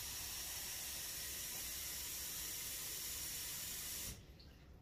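Kitchen tap running in a steady hiss as a bowl is filled with water, shut off abruptly about four seconds in.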